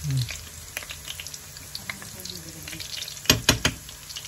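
Hot chicken oil (chicken fat, garlic and annatto seeds in oil) sizzling in a pan while a metal spoon stirs it. A little past three seconds in come a few sharp clinks of metal utensils against the pan.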